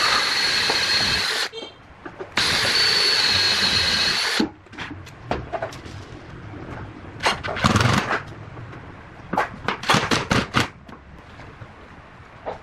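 A power tool's motor running at full speed in two bursts, stopping about a second and a half in, then running again for about two seconds before cutting off. It is followed by scattered knocks and clatter.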